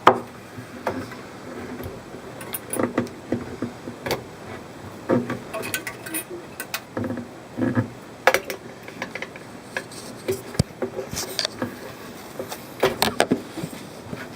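Irregular clicks, taps and short scrapes of a blade working at the silicone seams of a glass aquarium tank.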